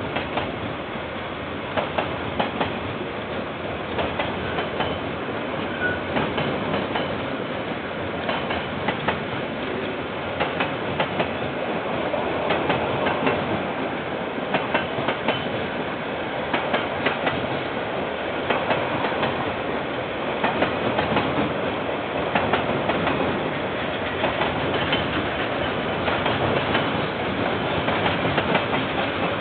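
Long container freight train's wagons rolling past: a continuous rumble of wheels on rail, with a steady stream of sharp wheel clicks.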